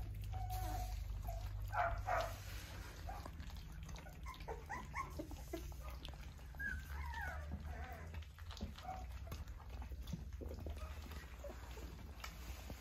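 A litter of Australian Shepherd puppies eating their first meal from a shared feeding pan, letting out many short squeaks and whimpers, some sliding in pitch, over a steady low hum.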